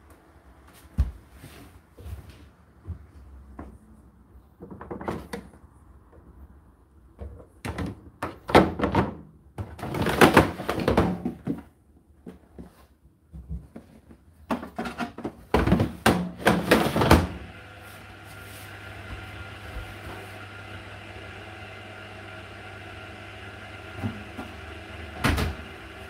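Plastic knocks, clatters and rattles from handling a condenser tumble dryer's white plastic water container and loading laundry, in several loud clusters. A little over halfway through, a steady mechanical hum with a fixed pitch starts and keeps going, with a couple of single knocks near the end.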